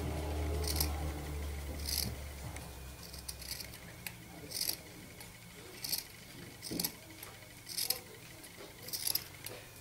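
Scissors snipping through a strip of fluffy fabric, a short crisp snip about once a second, eight or so times.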